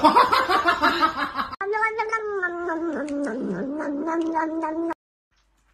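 Cats yowling. A loud, rough yowl is followed after a sudden break by one long, drawn-out yowl that wavers in pitch for about three seconds and then cuts off abruptly.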